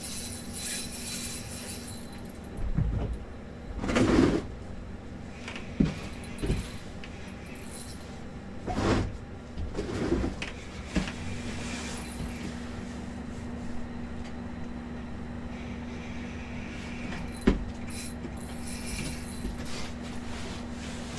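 Scattered knocks, bumps and rustles of gear being handled on the floor of an ice-fishing house, over a steady low hum. The loudest bumps come about 4 and 9 seconds in, and a sharp knock comes near the end.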